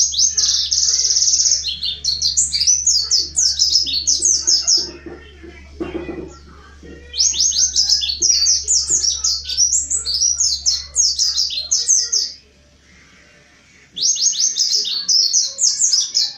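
Mountain white-eye (pleci montanus) singing full song: rapid, high twittering chirps in three long phrases of about five seconds each, separated by short pauses.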